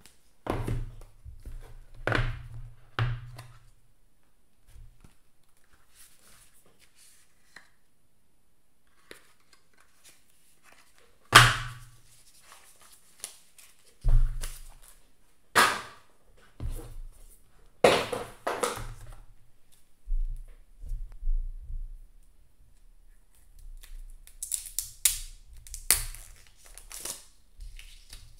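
Apple Pencil box being unpacked by hand: paper and cardboard packaging torn open, crinkled and set down. It comes as separate sharp handling noises with soft thumps, a few seconds apart, and a quicker flurry of light crinkling near the end.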